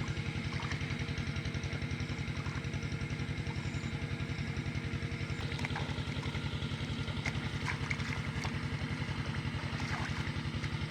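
A small engine running steadily at idle, with a fast, even putter that holds the same pace throughout.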